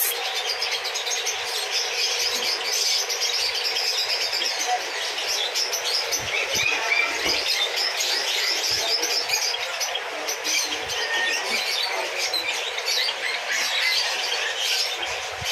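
Steady chatter of many small caged birds chirping at once, a dense chorus of overlapping high chirps.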